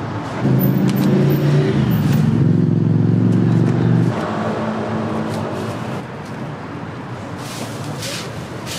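A motor vehicle engine running close by, a loud low steady hum that stops abruptly about four seconds in, leaving the hum of street traffic. Near the end come a few short crinkly rustles of plastic garbage bags being handled.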